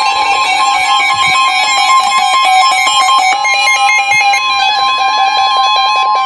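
Weather radios sounding a severe thunderstorm warning alert: the steady 1050 Hz warning alarm tone held under fast-stepping electronic alert beeps from more than one receiver at once.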